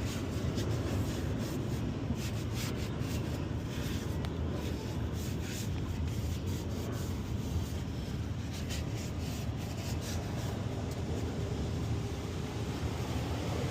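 Irregular rubbing and scuffing handling noises over a steady low rumble.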